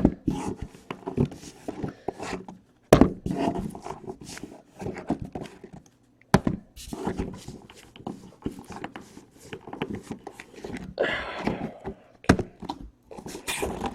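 Hands handling and opening a trading card box: rustling with scattered knocks and taps, a few of them sharper.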